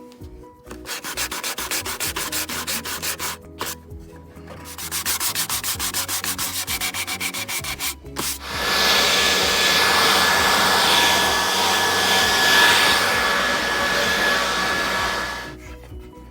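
Wood being sanded. First come two runs of quick, even back-and-forth strokes, then a louder continuous sanding for about seven seconds.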